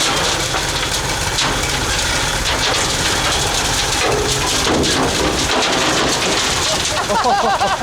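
Heavy machine's engine running under a loud rushing, crackling noise. A wavering whine comes in near the end.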